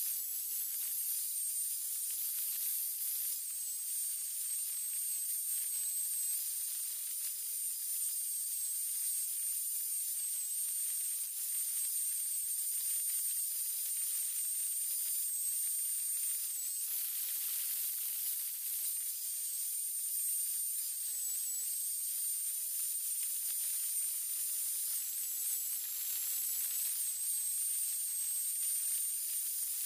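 Angle grinder fitted with a sanding disc, running steadily: a high hiss with a thin high whine that wavers, dipping briefly twice, once just past the middle and once near the end.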